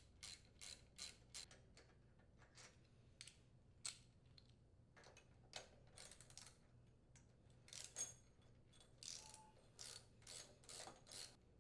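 Faint, irregular clicking of a 3/8-inch socket ratchet as the cylinder head bolts of a Briggs & Stratton riding mower engine are loosened and unthreaded, with light metal ticks from the tool and bolts.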